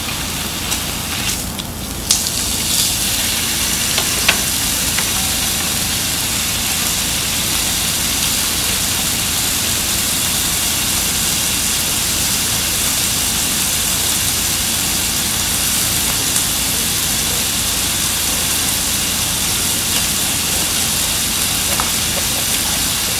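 Thick slices of beef ribeye sizzling on a hot tabletop grill plate, a steady dense hiss. About two seconds in there are a couple of clicks as the meat is turned, and the sizzle gets a little louder.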